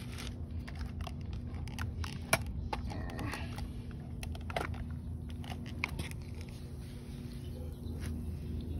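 A steady low hum with scattered clicks and rustles from the phone being handled and moved.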